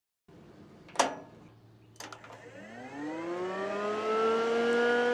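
10-inch electric engine-bay cooling fan switched on with a click, then its motor spinning up with a rising whine that levels off at a steady pitch.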